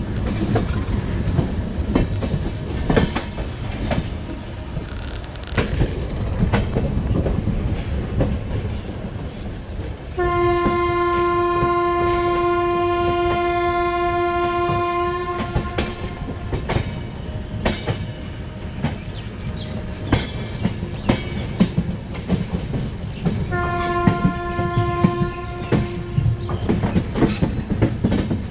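Passenger train running on the rails with a rapid clickety-clack of wheels over rail joints, over a low rumble. A train horn sounds one long steady blast of about five seconds a third of the way in, and a shorter blast of about three seconds near the end.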